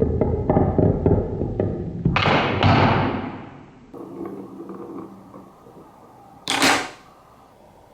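Balls rolling and clattering down a wooden marble run, a rumble dotted with small knocks, loudest in the first three seconds and quieter after. There are short rushing swells about two seconds in and again about six and a half seconds in.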